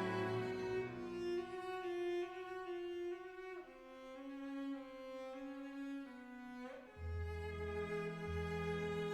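Background music of slow, sustained bowed-string notes, the chord shifting about every three to four seconds, with low repeated bass notes coming in near the end.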